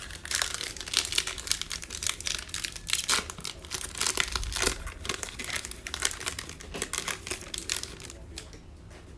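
Wrapper of a Mosaic football trading card pack crinkling as it is torn open and handled, with many quick irregular crackles that ease off near the end.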